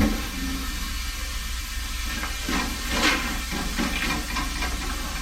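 Steady hissing background noise, with a few short knocks about halfway through.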